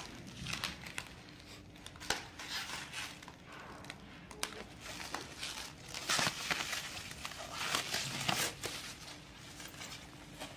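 Plastic stretch wrap and foam packing sheet crinkling and tearing as they are cut with scissors and pulled off a new scooter, in irregular rustling bursts, the loudest a little after six seconds and about eight seconds in.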